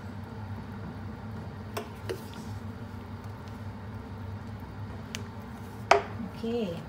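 Wet cassava cake batter being stirred and mixed by hand, with a few light clicks of the utensil against the bowl, the loudest just before the end, over a steady low hum.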